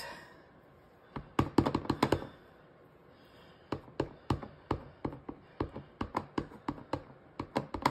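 A clear acrylic stamp block tapped again and again onto a Night of Navy ink pad to ink the stamp: a quick run of clicks about a second in, then steady light taps, about three a second, from about halfway through.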